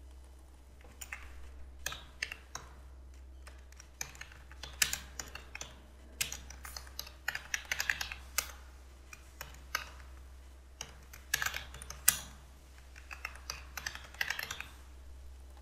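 Computer keyboard typing in several bursts of quick keystrokes with short pauses between them, over a steady low hum.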